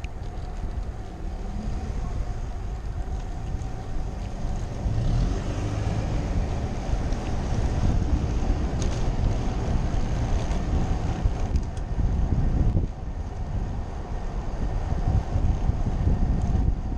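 Wind buffeting the microphone as a road bike rides along a city street, over a steady low rumble of road and traffic noise.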